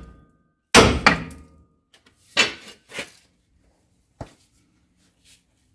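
Sledgehammer blows on a steel truck leaf spring pack, knocking it into place: a heavy metallic strike about a second in with a second right behind it, then two lighter strikes around two and a half and three seconds in, and a small click a little later.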